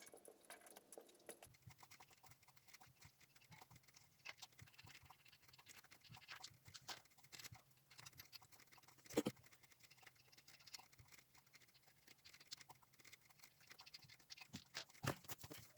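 Near silence with faint, scattered clicks and scrapes of hand work, and one sharper click about nine seconds in.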